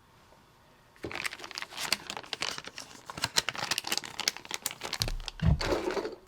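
Plastic soft-bait packaging crinkling and rustling as it is handled, starting about a second in, with a dull thump near the end.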